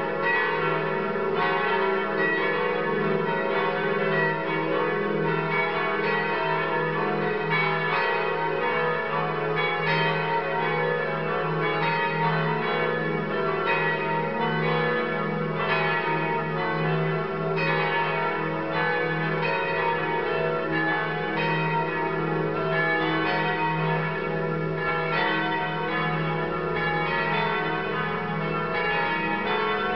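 Several cathedral bells ringing together in a continuous peal, with their strokes overlapping and fresh strikes about every half second to a second.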